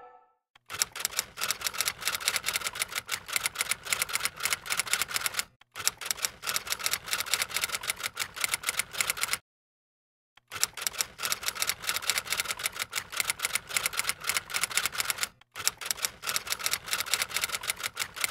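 Rapid typing keystrokes, quick clicks running in four long spells separated by short pauses, one of them about a second long midway.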